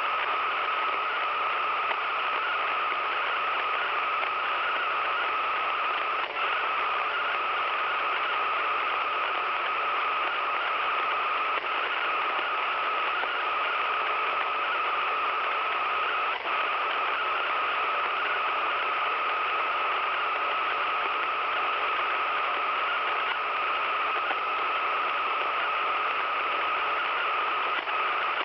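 Radio receiver putting out a steady static hiss with a high-pitched tone running through it, broken by a few brief dips.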